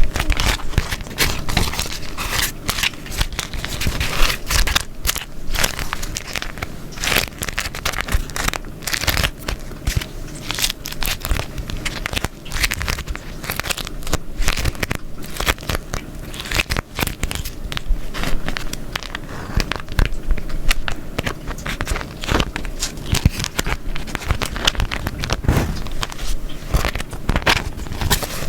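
Beeswax wrap crumpled and folded by hand: a dense, irregular crinkling and crackling, with sticky peeling crackles as the waxed sheet pulls apart from itself.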